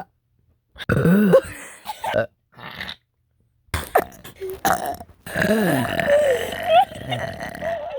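A person burping repeatedly: a loud burp about a second in, then, after a short silence, a few short burps and a long drawn-out burp near the end.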